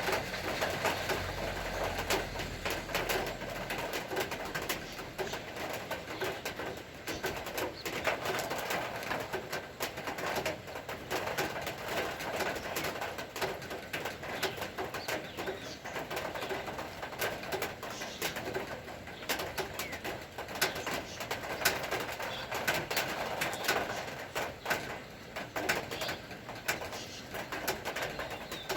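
Steady rainfall, with many drops tapping irregularly on a hard surface close by.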